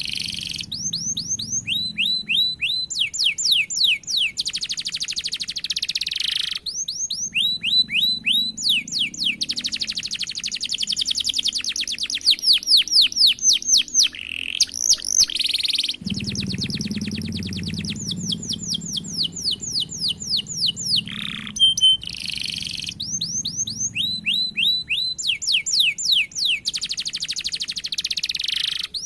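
Domestic canary singing continuously: long, fast rolling trills alternating with runs of repeated, quickly falling whistled notes, phrase after phrase with hardly a pause.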